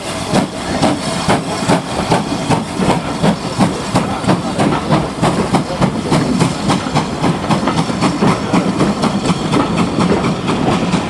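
Passenger coaches rolling past behind GWR 2884 class steam locomotive No. 3802 as it moves the train off. The wheels clatter in a quick, regular rhythm over a steady hiss of steam and exhaust.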